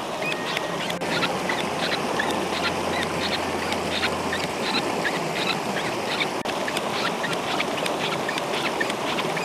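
Hand pump of a Purisoo⁺ portable water-filter bottle being worked stroke after stroke, giving repeated short squeaks as it draws river water up through its filters. The steady rush of the river runs underneath.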